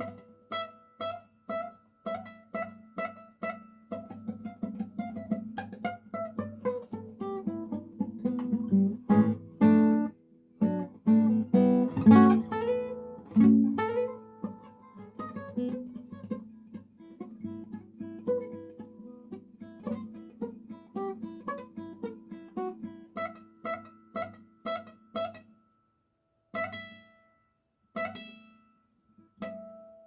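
Solo classical guitar with nylon strings, fingerpicked: a run of plucked notes and a descending run, then a louder passage of fast repeated chords near the middle, thinning out near the end to a few single plucked notes about a second and a half apart.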